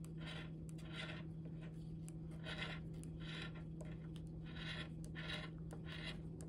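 The coating being scraped off a lottery scratch ticket: a series of short scratching strokes, about eight in all, each a fraction of a second long and coming in loose pairs.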